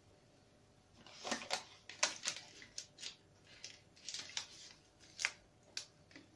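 Glossy plastic chocolate-bar wrapper crinkling as it is handled: a string of irregular sharp crackles starting about a second in, the loudest a little past five seconds.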